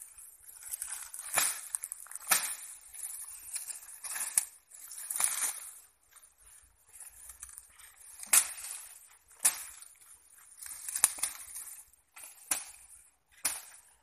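Someone pushing through dense, dry brush: leaves and stems rustling, with sharp cracks of dry twigs and stalks snapping every second or so at irregular intervals.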